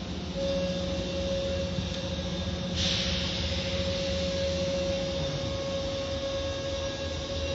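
Car wash machinery running: a steady high whine over a low hum. A loud hiss of spray or blowing air switches on about three seconds in, and the low hum dies away around five seconds.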